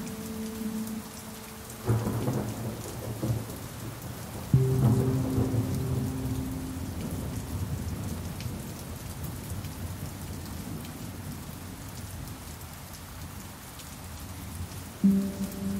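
Steady rain with a sudden roll of thunder about two seconds in. A low pan drum note is struck at about four and a half seconds and rings out over the rain, and another pan drum note comes in near the end.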